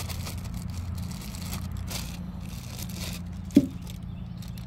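A clear plastic bag crinkling and rustling as a small part is handled, over a steady low hum. A single sharp knock about three and a half seconds in.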